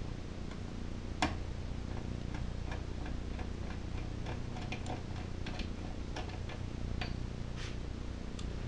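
Hand ratchet clicking in short, irregular runs as a small 5/16 bolt on the oil fill tube bracket is run in, with one sharper click about a second in.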